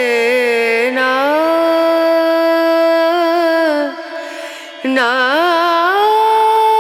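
Background music in an Indian classical style: a single melodic line of held notes joined by gliding, wavering ornaments. It breaks off briefly about four seconds in and then resumes.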